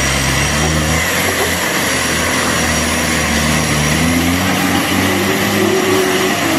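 Off-road 4x4's engine running hard under load as the vehicle climbs a steep dirt slope, a loud steady drone over a dense noise.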